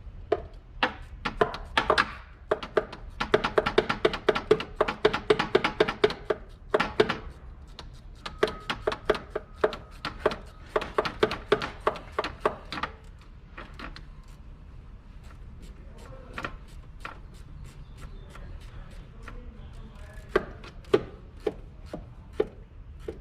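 Ratchet wrench clicking rapidly as a hose clamp is tightened, in two long runs of quick ringing clicks, then scattered single clicks and knocks.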